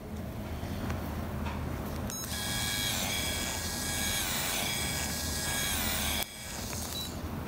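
Endodontic motor turning a rotary file in a contra-angle handpiece while shaping a root canal: a steady high electric whine starts about two seconds in, dips in pitch briefly a couple of times, and cuts off suddenly about six seconds in. A low steady hum lies underneath.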